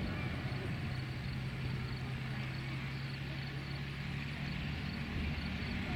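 P-51D Mustang's Packard Merlin V12 engine running steadily with the propeller turning, a low drone that rises slightly in pitch about four seconds in.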